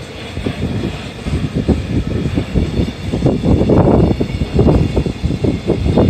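Freight train's container flatcars rolling past: a loud, continuous low rumble of wheels on rail with irregular clatter and knocks.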